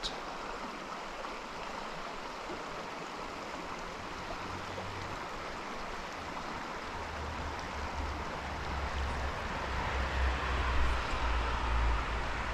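Mountain trout stream flowing over rocks, a steady rush of water. From about halfway through, a low rumble joins it and grows louder.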